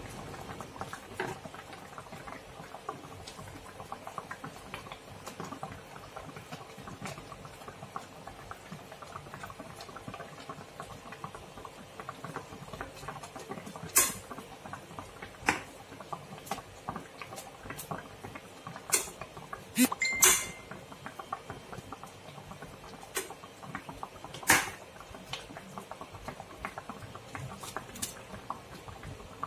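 Pot of fish soup simmering, a steady fine bubbling crackle. In the second half, a metal ladle knocks and clinks against the pot about five times.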